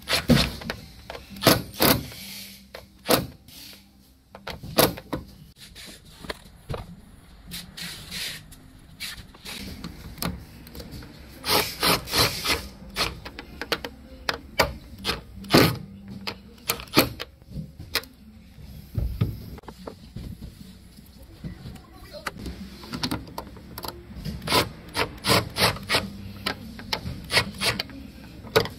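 Hex key turning the steel bolts that clamp a rowing machine's water tank at its rim: bursts of sharp metallic clicks and scraping as the key is worked and repositioned on the bolts, with quieter pauses between.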